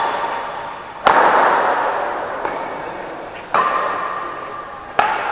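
Badminton rackets striking a shuttlecock three times during a rally, sharp smacks about a second, three and a half seconds and five seconds in. Each hit echoes on for a second or more in the large metal-roofed hall.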